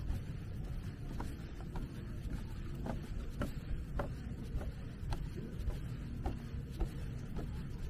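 Outdoor ambience: a steady low rumble with about a dozen short clicks and creaks at irregular intervals.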